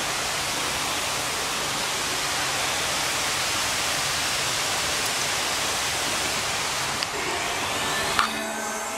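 Fountain water rushing steadily, a constant even hiss of falling and splashing water. About a second before the end it cuts off with a click into faint music.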